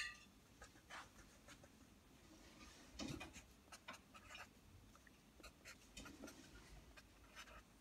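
Faint scratches and taps of a Crayola felt-tip marker writing on paper in short strokes, with a sharper tap right at the start.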